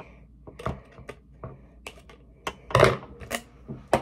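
Scissors snipping a plastic claw clip free from its cardboard backing card, with the card rustling: a run of short clicks and snips, the loudest near three seconds in.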